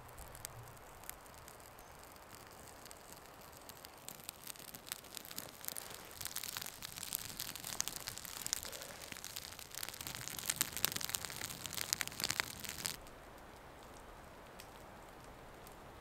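Small kindling fire of bark and dry twigs catching and crackling, with dense, irregular sharp crackles that thicken from about four seconds in and cut off suddenly near the end.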